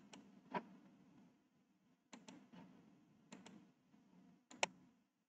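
Computer mouse buttons clicking faintly, several single clicks and quick double clicks spread over a few seconds, over faint room tone.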